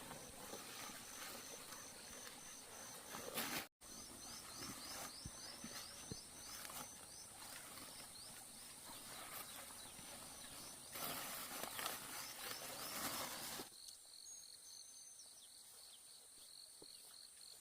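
Insects chirping in rapid, evenly pulsed high trills over a steady background of rustling noise, louder for a couple of seconds near the end; late on the rustling drops away and a lower, slower-pulsed insect trill remains.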